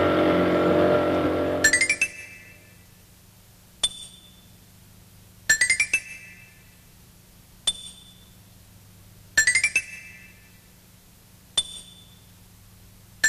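A small boat's motor running briefly, ending about two seconds in. Then background music of bright, chime-like struck notes in short rising runs that repeat about every two seconds.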